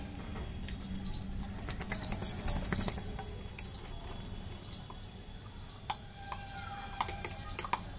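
A beagle puppy eating dry kibble from a stainless steel bowl: crunching, with kibble clicking and rattling against the metal. The clicks come thick about a second and a half in, then thin out and return as scattered clicks near the end.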